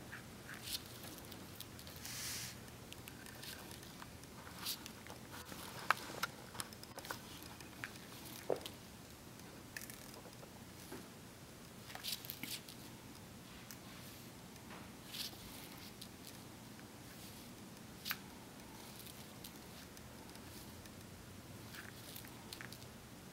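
Scattered small clicks and light rustles of hand beadwork: a needle picking tiny seed beads off a plastic plate and thread being drawn through, about a dozen soft ticks spread irregularly.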